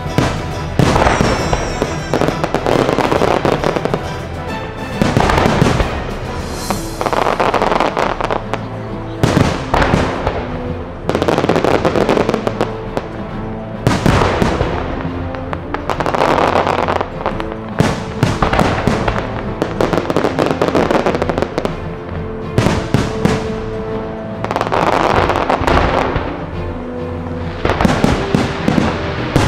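New Year's fireworks show: volley after volley of shells bursting and crackling, a loud burst every second or two, with show music playing underneath.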